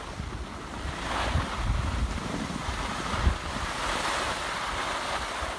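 Skis sliding and scraping over packed snow while wind buffets the microphone. The scraping hiss grows louder about a second in.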